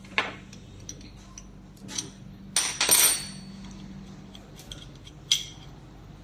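Metal parts of an LVLP spray gun clicking and clinking as they are handled and taken apart by hand. A few scattered knocks, with the loudest burst of clatter about three seconds in.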